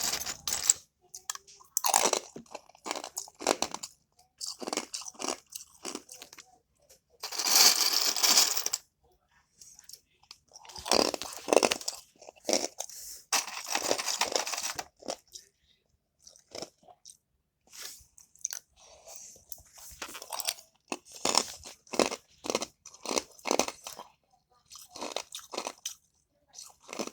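Ice cubes being bitten and chewed close to the microphone: a run of crunches with pauses between bites, and longer stretches of grinding, crackling crunching.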